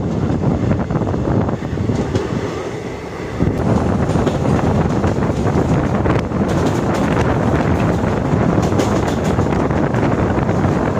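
Moving train running on the track: a steady rumble of wheels and rails with wind buffeting the microphone. From about six seconds in, sharper clatter joins the rumble.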